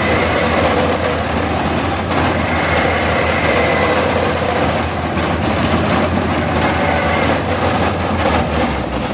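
Yanmar AW82V combine harvester's diesel engine and threshing machinery running steadily under load in soft, waterlogged ground, with a constant low hum under a dense mechanical din. The low engine tone weakens right at the end.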